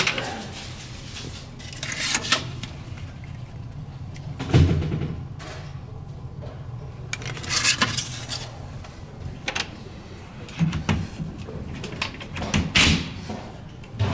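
Handling noises at a door and a wall-mounted fire extinguisher: scattered knocks and rustles, with a heavy thud about four and a half seconds in. The extinguisher's paper inspection tag is flipped about two thirds of the way through, and the door is handled near the end.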